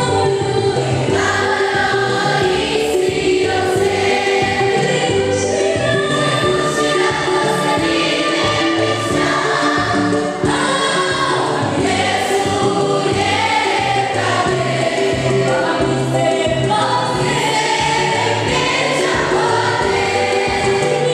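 Children's and youth choir singing a gospel song together, some voices through microphones, continuously and at a steady level.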